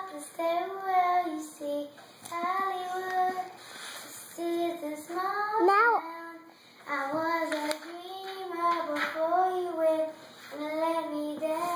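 A young girl singing a princess song without accompaniment, in held phrases with short breaks between them. Her voice slides steeply up in pitch about halfway through.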